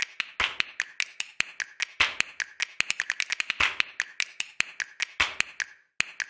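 Silicone spatula stirring thick puréed gravy in a non-stick pan: a rapid, irregular run of small clicks and taps, pausing briefly near the end.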